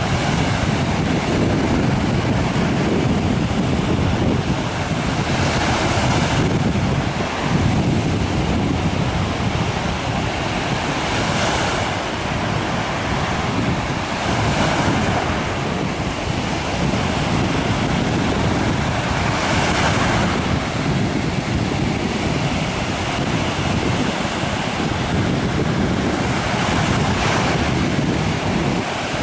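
Sea surf on a sandy beach: small waves break and wash up the sand, swelling every few seconds over a steady rush. Wind buffets the microphone with a low rumble.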